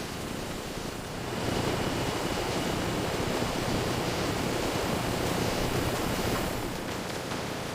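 A steady rushing noise that swells about a second and a half in and eases back near the end, with a faint high steady tone under it.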